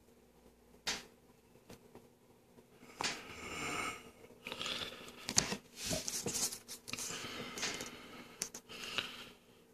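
Faint rustling and light scraping handling noises, uneven and broken into short spells, with a single sharp click about a second in.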